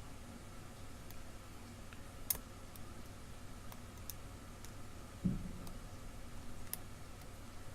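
Faint, scattered clicks of a lock pick working the pins inside an ERA challenge lock, with one soft low thump about five seconds in.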